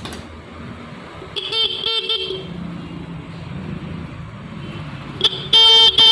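Electric car-type horn wired to a battery and sounded in short test blasts while its adjusting screw is tuned: a few weak, brief toots a little over a second in, then two loud, clear blasts near the end as the tone comes up.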